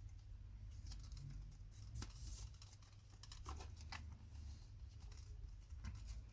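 Faint handling of Sinclair ZX Spectrum keyboard and case parts being fitted together: a few scattered light clicks and taps, the clearest about two seconds in and again about halfway.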